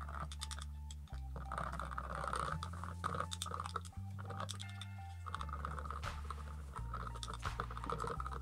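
Plastic spoon stirring a foamy mix of coffee, shampoo and shaving foam in a glass mug, with rapid clicks and scrapes. Background music with slow, changing bass notes plays throughout.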